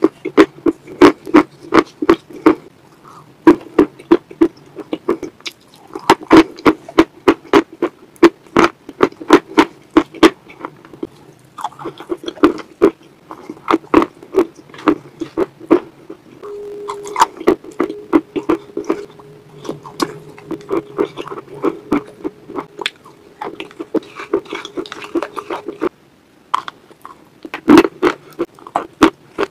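Close-miked eating of chalk paste: a plastic spoon scraping a glass bowl and crunchy, wet chewing, heard as a quick run of sharp clicks and crunches. A steady low hum runs through the middle stretch.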